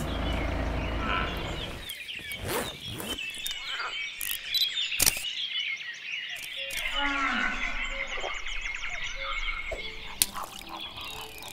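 Outdoor nature soundscape: many birds chirping throughout, with a low animal call about seven seconds in and a few sharp clicks.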